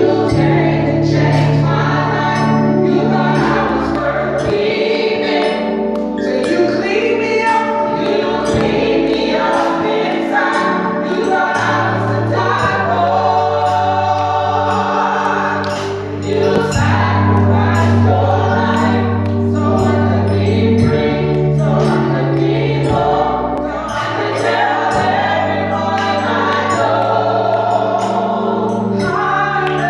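Gospel music: a choir singing over a band with a bass line and drums.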